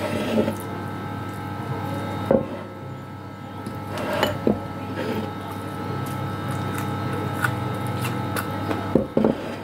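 A person eating with her hands: chewing and mouth sounds, with several short clicks and knocks as fingers pick food off a plate, over a steady electrical hum.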